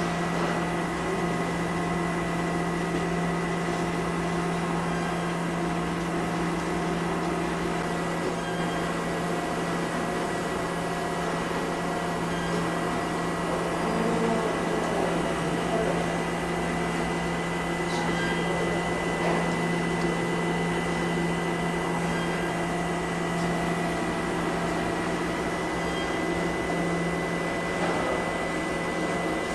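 Small automatic soymilk-making plant running: a steady low machine hum of its motors and pumps, with a faint steady high tone over it.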